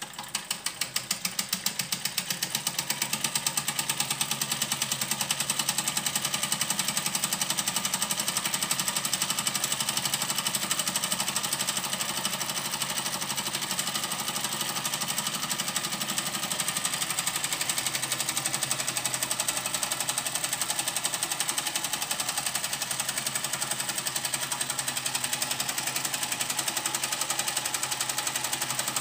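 Fleischmann 125/2 toy steam engine running fast: a rapid, even chuffing clatter that grows louder over the first few seconds, then holds steady.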